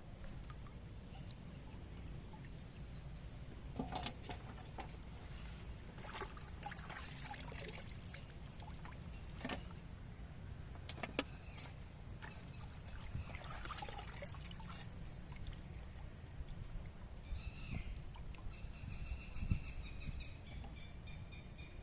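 Water sloshing and dribbling in short bursts, with scattered clicks and knocks, as quail are washed in a vessel by hand, over a steady low rumble. From about three-quarters of the way in, a high, wavering chirping sets in and keeps going.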